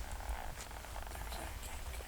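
An animal's rapid purring trill, repeated in short bursts.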